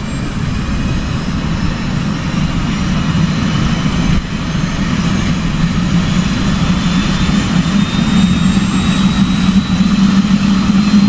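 Airbus H130 (EC130) helicopter starting up on the ground: the turbine's whine climbs slowly in pitch as the main rotor spools up, over a low, steady drone that grows louder.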